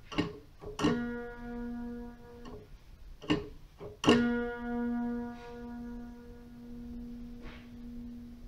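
A long stretched string on a demonstration instrument in a display case, plucked twice, each pluck just after a click. The same note rings each time: the first stops after about a second and a half, and the second, about four seconds in, keeps ringing.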